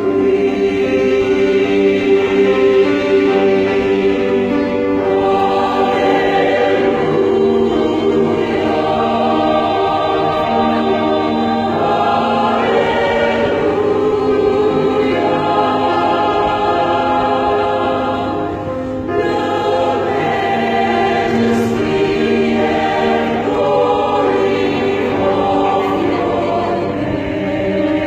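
Church choir singing a sacred choral anthem in full, sustained chords, with a brief drop in volume about two-thirds of the way through.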